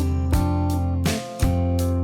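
Background music led by a strummed acoustic guitar, chords changing every half second or so.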